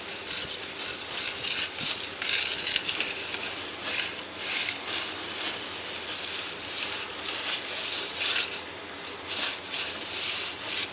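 Drain inspection camera being pushed along a 150mm stormwater pipe, giving an uneven scraping, rattling hiss that swells and fades every second or so.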